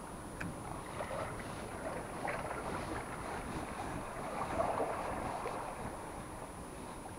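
Wind rushing over the microphone with sea water washing against a rocky shore, swelling briefly near the middle, and a few faint clicks.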